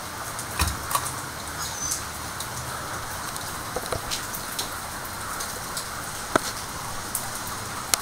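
Steady hiss of heavy rain with scattered drips and taps, mixed with the air rush of a ceiling fan running on its high setting.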